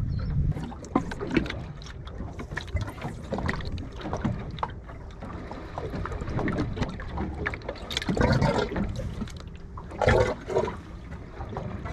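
Seawater lapping and splashing against a boat's hull over a steady low rumble, with two louder splashes about 8 and 10 seconds in.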